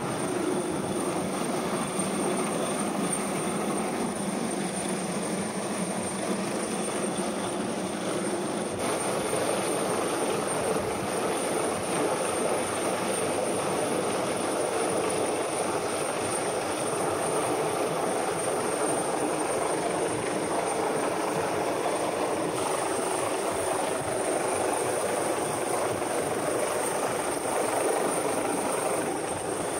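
Helicopter close overhead, a steady loud rotor and engine drone with a thin high whine above it.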